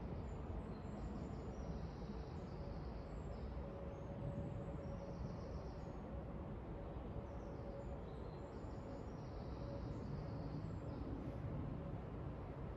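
Woodland ambience: a small songbird sings two short trilled phrases about seven seconds apart over a steady outdoor hiss and low rumble, with a faint steady hum.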